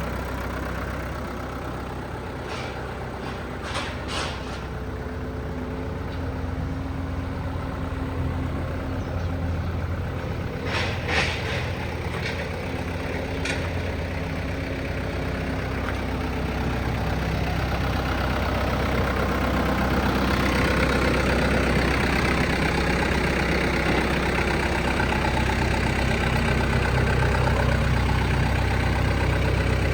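Komatsu 140 backhoe's diesel engine running steadily, with a few short knocks in the first half; about two-thirds of the way through it grows louder.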